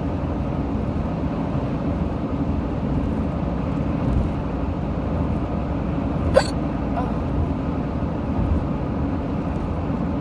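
A woman's sharp, short hiccup about six seconds in, with a fainter one just after. The hiccups were brought on by deliberate burping. Under them runs the steady road noise of a moving car, heard from inside the cabin.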